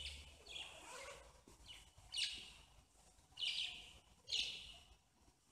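Budgerigars chirping: several short, high chirps spaced about a second apart.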